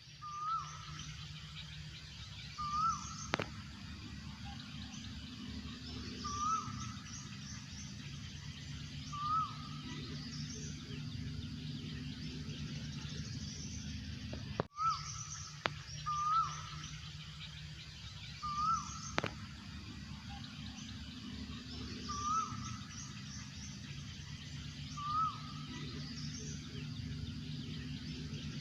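Asian koel calling, a short rising note repeated about every three seconds. Other birds chirp faintly higher up, over a steady low hum.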